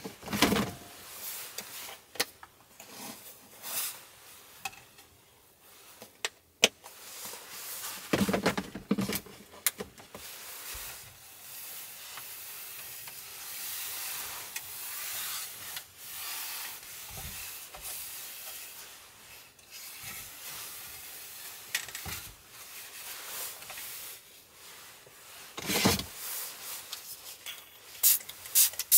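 Close handling sounds: a paper tissue wiped across a wooden tabletop, among scattered clicks and knocks of small items being moved. Near the end, a few quick squirts from a small pump-spray bottle.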